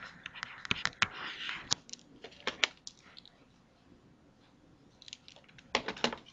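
Stylus tapping and scratching on a tablet screen while writing: faint irregular clicks and short scratchy strokes, in two clusters with a quiet gap between them.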